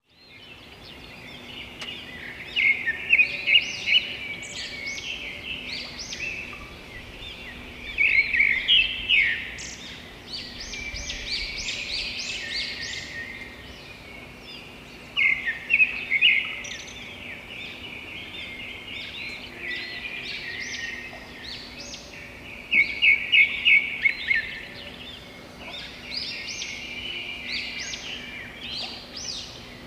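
Several songbirds chirping and singing, with loud runs of rapid chirps every several seconds over a continuous chorus of quieter calls.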